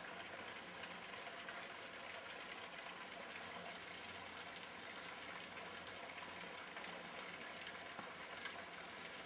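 Steady high-pitched drone of a forest insect chorus, one unbroken even tone, with faint scattered ticks.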